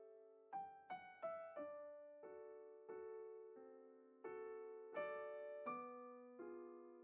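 Background music: solo piano playing a slow, gentle melody over chords, each note struck and left to fade.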